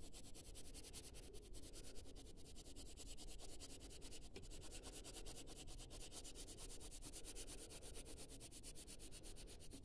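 A 2B graphite pencil scratching faintly on paper as it shades in quick, even back-and-forth strokes.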